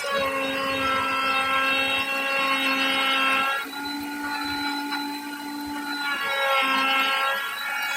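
Electric power tool's motor running with a steady whine. It grows louder and harsher for the first three and a half seconds and again for a stretch near the end, as the tool works into the wood.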